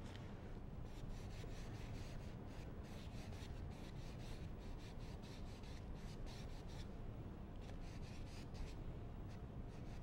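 Faint, irregular rubbing strokes on a stretched canvas as wet oil paint is worked and wiped, over a low steady room hum.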